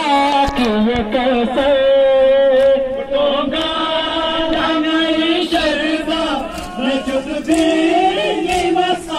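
Men's voices chanting a Muharram mourning lament (noha) together in one melodic line, with long held notes.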